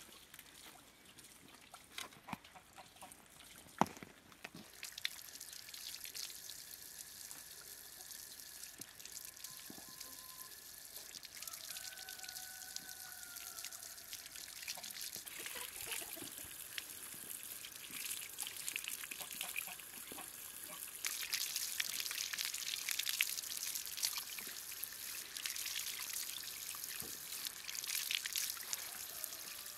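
Water running from an outdoor tap hose and splashing over vegetables as they are rinsed by hand; the splashing grows louder about twenty seconds in. The first few seconds are quieter, with a few light clicks.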